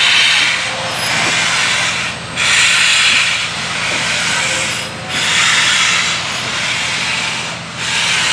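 Union Pacific 844, a 4-8-4 steam locomotive, pulling away with its exhaust chuffing in loud, hissing beats about every second and a half. A steady low hum runs underneath.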